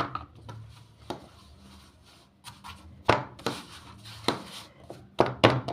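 Mandazi dough being spread out flat on a floured surface: a run of irregular knocks, about eight, with rubbing and scraping between them.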